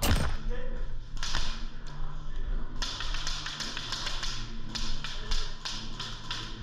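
Airsoft guns firing in a close-quarters game: a sharp crack at the start, another just over a second in, then an irregular run of about a dozen cracks, two to four a second, that stops about a second before the end.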